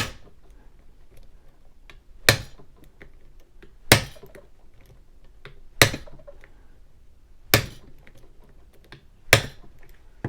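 Six sharp taps of a mallet striking the head of a bump key seated in a 30 mm Brinks padlock, about one every two seconds. Each blow knocks the key's cuts into the pin stacks to try to jump the pins past the shear line.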